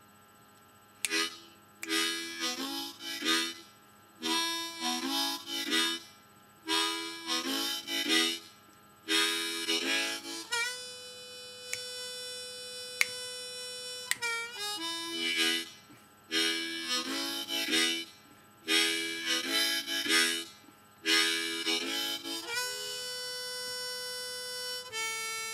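Key-of-A diatonic harmonica playing a chugging train rhythm of short low-hole chords in quick groups. The rhythm is broken twice by a long held 4-hole draw note (B) as a simple solo, the first about ten seconds in, dipping in pitch as it ends.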